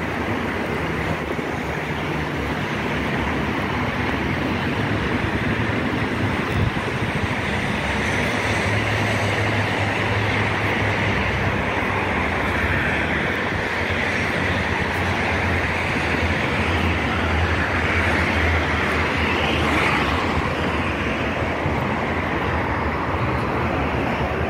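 Outdoor road ambience: steady traffic noise with wind on the microphone, and a low engine hum that swells in the middle.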